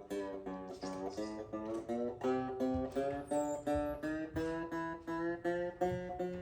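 Ortega Falcon banjo being picked: a steady run of single plucked notes, about three to four a second, stepping up and down in pitch.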